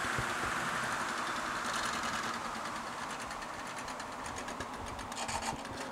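Both wheels of an upturned dual-hub-motor electric bicycle spinning freely: a rushing whir that slowly falls in pitch and level, with a fast light ticking coming in after about a second.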